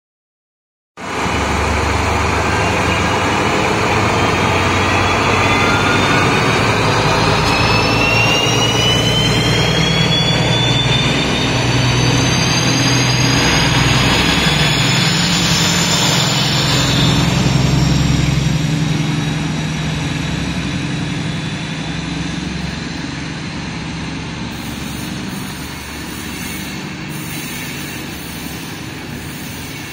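Two DB class 218 diesel-hydraulic locomotives with MTU 12V 956 TB 11 engines pulling away with an Intercity train, the engines running hard under load. It cuts in about a second in, with high whistles rising slowly in pitch over the first part, then fades gradually as the train moves off.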